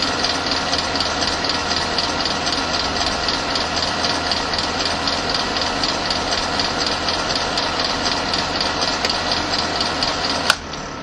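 Electric fan running with a steady whir, a low hum and an even, fast pulse. Near the end there is a sharp click, after which the whir begins to fade away.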